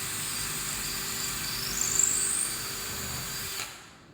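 Power drill spinning a 1/8-inch bit to drill pilot holes for screws. It makes a steady high whine that rises in pitch for a moment about two seconds in, then the drill stops abruptly near the end.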